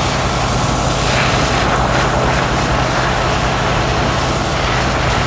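Steady rushing of a fire hose spraying water onto a burning van, over a steady low engine drone.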